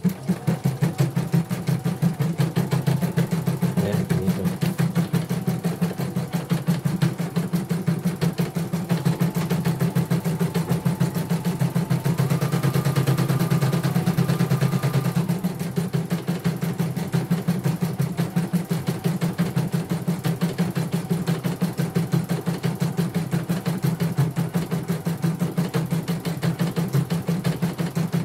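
CNY portable embroidery machine stitching a single-colour design at raised speed, its needle bar and hoop drive making a fast, even run of needle strokes.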